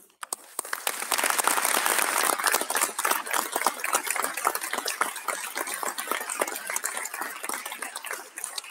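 Applause from a small group of people clapping. It builds up within the first second, holds steady and thins out near the end.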